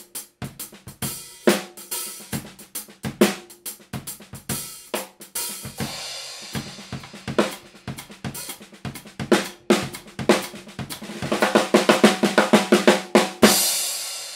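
Soo Custom Drum 14x6.5-inch birch-poplar snare drum, 20-strand snare wires, played with sticks in a drum-kit groove with other drums and cymbals. A fast run of snare strokes builds from about 11 seconds in and ends with a last accented hit that rings out near the end.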